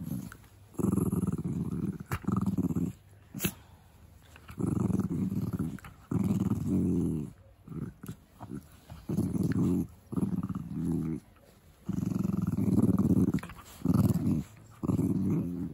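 Puppies growling while play-biting each other: a string of low growls, each about a second long, with short pauses between.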